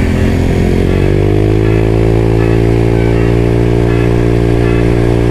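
Automatic scooter engine running through an aftermarket DSM exhaust while riding, its pitch climbing slightly about a second in and then holding steady at cruising speed.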